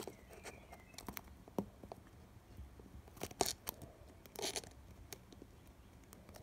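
Fingers handling a thin butterfly decoration on a small craft cake: scattered small clicks and rustles close to the microphone, with the loudest handling noises about three and a half and four and a half seconds in.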